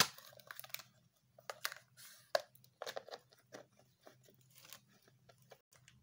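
A hard plastic juice cup with a lid and straw being handled and turned in the hands. Irregular plastic clicks, crackles and crinkles.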